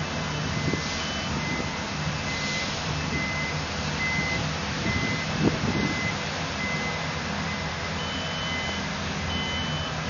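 A construction vehicle's reversing alarm beeping about once a second over the steady hum of heavy diesel machinery running on the site. A brief thump about halfway through.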